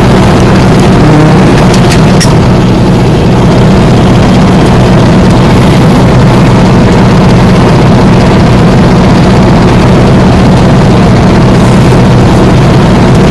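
Tractor engine running steadily while ploughing, a loud constant low hum, with a few light clicks about two seconds in.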